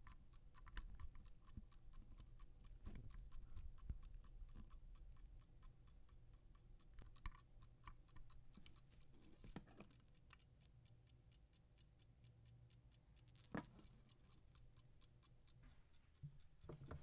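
Faint, fast, even ticking of a restored fusee pocket watch's running movement, with a few louder single clicks.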